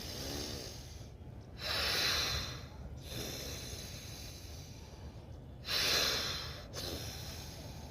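Slow, deep nasal breathing of anulom vilom (alternate-nostril breathing), drawn through one nostril at a time. A louder breath comes about two seconds in and another about six seconds in, with softer, longer breaths between.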